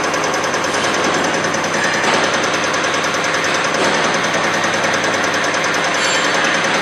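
Common rail injector and pump test bench running, giving a steady, loud, rapid mechanical clatter.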